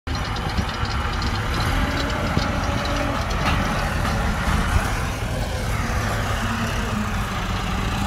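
Diesel engines of a forage harvester and the tractor running alongside it, giving a steady heavy drone while the harvester chops standing corn for silage. Light ticking can be heard over the drone during the first few seconds.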